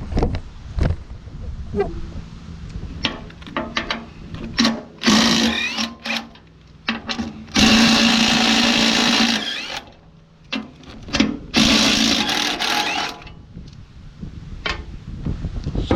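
A power tool with a socket running in three bursts of a second or two each, spinning out the 5/8-inch bolts of a wood chipper's trap door, with clicks and knocks of the socket and tool between the runs.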